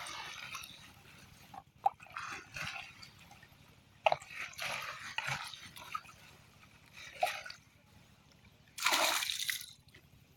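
Water splashing and sloshing in irregular short bursts, with a few sharp knocks; the biggest splash comes near the end.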